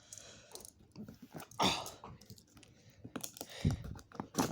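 Irregular clicks, taps and rustles of objects being handled close to the microphone, with a louder scrape about a second and a half in and a heavy thump near the end.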